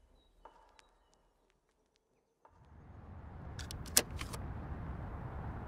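Near silence with a few faint clicks, then a steady low outdoor background noise fades in about two and a half seconds in, with a few sharp clicks and one loud snap about four seconds in.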